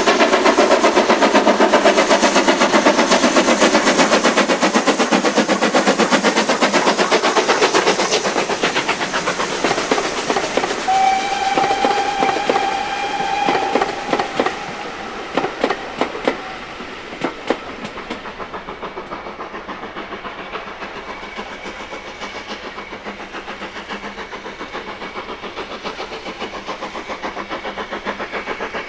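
Steam-hauled train running past with a loud, rapid rhythmic clatter that fades. About eleven seconds in, the steam locomotive's whistle sounds once, a single held note lasting about five seconds. A few sharp clicks follow, then the train sounds fainter and steady.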